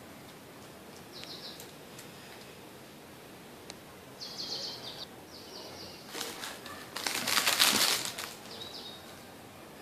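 Birds chirping in several short bursts. About seven seconds in comes a loud rustle of sheer curtain fabric being pushed about by a monkey, lasting a little over a second, with a shorter one just before it.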